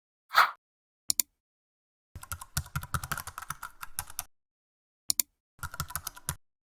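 Typing on a computer keyboard in two bursts of rapid key clicks, the first about two seconds long and the second under a second. A quick pair of clicks comes before each burst, and a short soft burst comes about half a second in.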